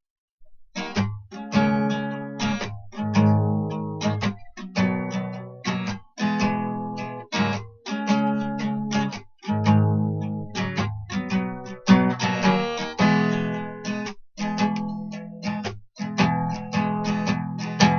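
Acoustic guitar strummed in a steady chord rhythm, coming in after a brief pause about a second in.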